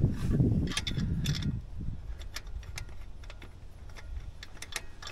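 Hand ratchet clicking in short, irregular runs as bolts are tightened on the front of a GM LS-style V8, with metal tools clinking. A low rumble comes in the first two seconds.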